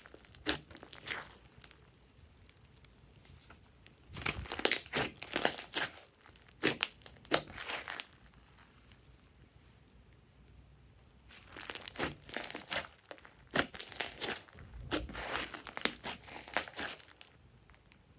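Glossy slime being squished, stretched and folded by hand, giving wet crackling and clicking. It comes in three spells: briefly at the start, again about four seconds in, and once more about eleven seconds in, with quiet pauses between.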